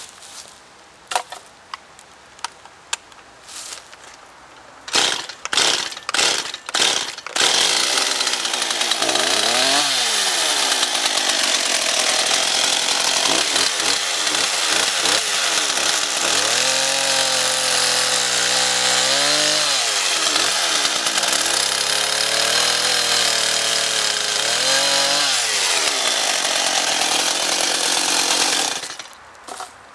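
Two-stroke gasoline chainsaw starting up about five seconds in after a few short bursts, then running at high revs and cutting through a birch log. Its pitch drops and recovers several times as the chain bites into the wood. It stops shortly before the end, with clicks and knocks before it starts.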